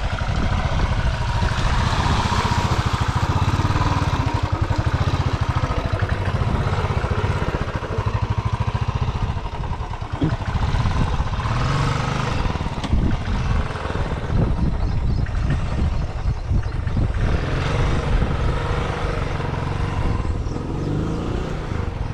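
Royal Enfield Classic 350's single-cylinder engine running as the bike is ridden slowly through deep mud ruts, its revs rising and falling, with a few knocks.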